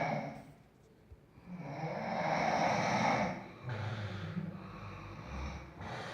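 A sleeping person snoring. There is one long, loud snoring breath from about a second and a half in, a lower-pitched one straight after, and the next breath begins near the end.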